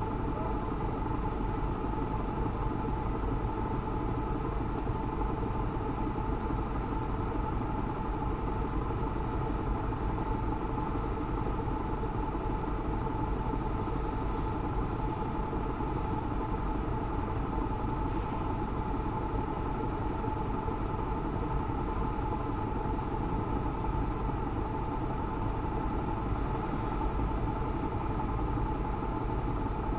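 Several sport motorcycles idling together while stopped, a steady, even engine drone with a constant high whine over it.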